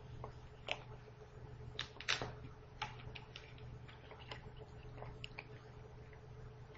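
Faint, irregular small clicks and taps, about a dozen, over a steady low electrical hum.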